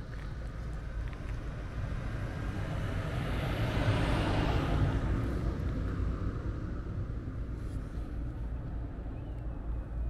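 A vehicle passing by, its sound swelling to a peak about four seconds in and then fading away, over a steady low rumble.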